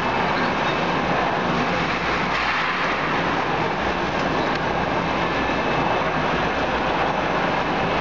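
Continuous carbonization furnace line running: steady, loud machinery noise from its motors and conveyors, even and unbroken, with no distinct rhythm or knocks.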